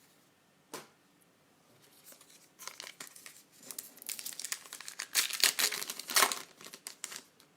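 Foil trading-card pack wrapper being torn open and crinkled by hand, with a single click about a second in. The tearing builds to its loudest near the end.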